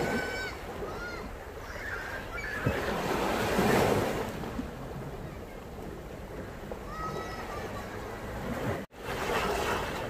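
Rushing water noise that swells and fades about three seconds in, with a few short high chirps now and then. The sound cuts out for an instant near the end.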